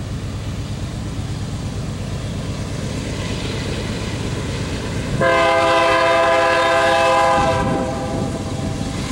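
Low, steady rumble of an approaching diesel-hauled coal train led by GE AC4400CW locomotives. About five seconds in, the lead locomotive's air horn sounds one long blast of a few tones at once, lasting a little over two seconds, a warning for the level crossing.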